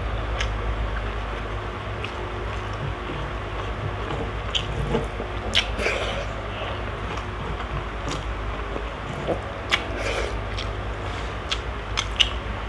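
Close-miked chewing and wet mouth sounds of a person eating rice by hand, with scattered short smacks and clicks over a steady low hum.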